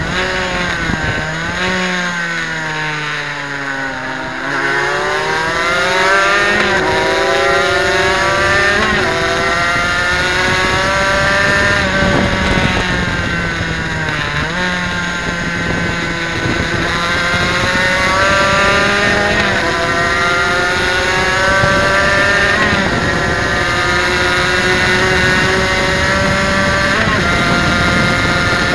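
Suzuki RGV250 two-stroke V-twin racing engine heard from on board at high revs. It eases off and drops in pitch over the first few seconds, then climbs back in a series of rising sweeps broken by short drops at the gear changes, and holds high revs with occasional dips.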